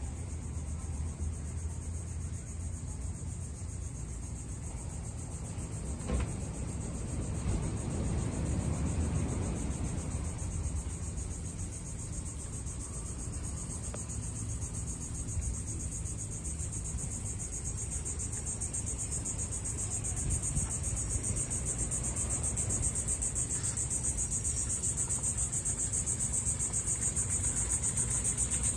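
Insect chorus: a steady, high, rapidly pulsing trill that grows louder near the end, over a low outdoor rumble.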